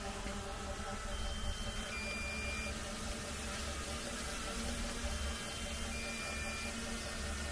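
Two pairs of electronic warning beeps from a drone's remote controller during landing, each pair a higher tone stepping down to a lower one, about four seconds apart, over a steady low rumble.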